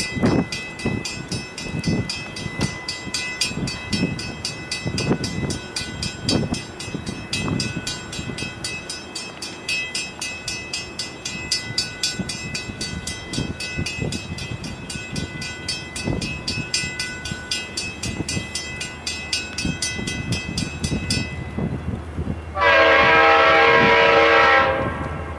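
Train rolling past with irregular heavy thumps of wheels over the track and a fast, high-pitched metallic rattle that stops about four seconds before the end. Then the locomotive's RS5T five-chime air horn sounds one loud chord lasting a little over two seconds.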